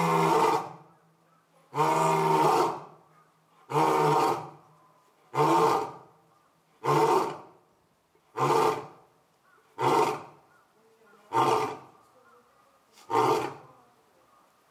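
Male lion roaring bout: nine deep calls. The first ones are long, and the later ones get shorter and come closer together as the bout winds down, ending about 13 seconds in.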